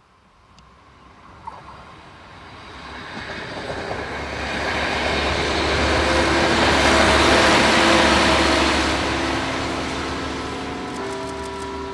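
Diesel railcar approaching and passing, its engine drone and wheel-on-rail rush building over several seconds, loudest a little past the middle, then slowly fading. Bells start ringing just before the end.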